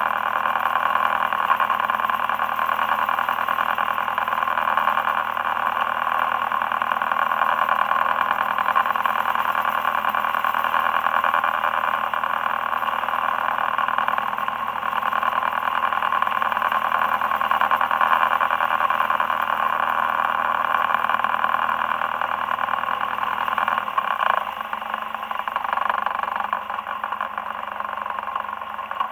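Boat engine running steadily while trolling, under a constant noise of water and wind. The low engine hum drops out about 24 seconds in, and the sound grows slightly quieter after that.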